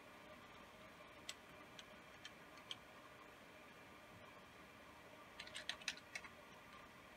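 Faint taps on a computer keyboard: a few scattered keystrokes, then a quick run of them about five seconds in, typing a measurement into a spreadsheet.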